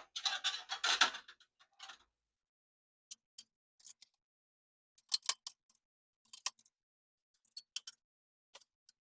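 A thin metal I/O shield being handled and pressed into a PC case's rear cutout. There is a rustling scrape for about the first second, then scattered sharp clicks and taps as it snaps into place.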